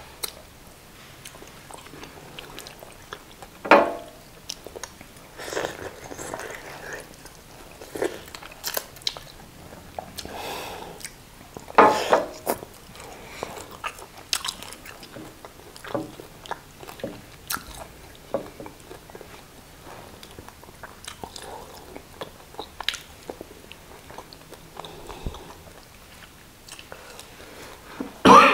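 Close-up eating sounds of people eating konkonte and chicken in peanut soup by hand: chewing and lip-smacking with scattered sharp clicks. A few louder sounds come at about four seconds, twelve seconds and just before the end.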